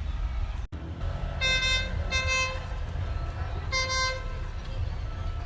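Train horn sounding three short blasts, the first two close together and the third about a second later, over the low rumble of a passing train.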